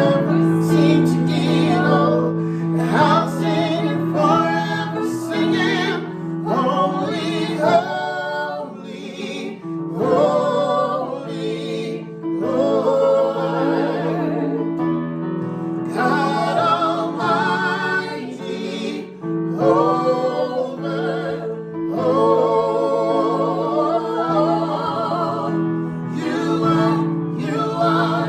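Worship music: a voice singing long, wavering notes over steady held chords.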